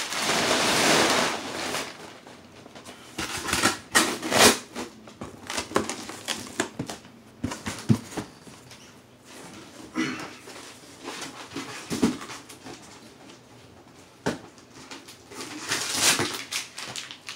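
Rustling and crinkling of packing material and the shipping box being handled, loudest in the first two seconds and again near the end, with scattered knocks and clicks in between.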